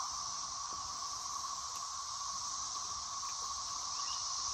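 Chorus of cicadas: a steady, unbroken shrill drone.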